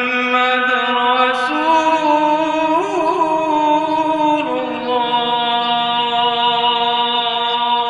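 A man's solo voice chanting the azan, the Islamic call to prayer, into a microphone. He holds long sustained notes, steps up in pitch near two seconds, adds a wavering melismatic run about three seconds in, then settles on a lower held note.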